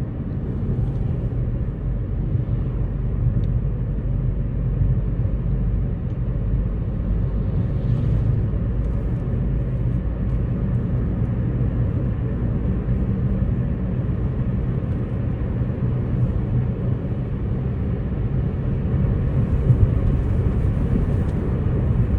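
Hyundai Elantra 1.8 driving on a test drive after a rebuild of its A6MF1 six-speed automatic transmission, a steady low rumble of engine and road noise. The transmission is shifting smoothly, with no shift shock.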